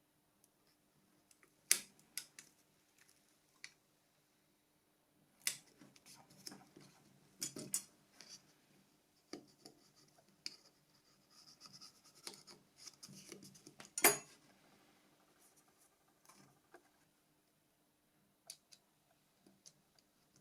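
Nokia 6233 phone parts being handled and fitted by hand: scattered small clicks, taps and scraping of plastic and metal pieces, with a sharp snap about 14 seconds in.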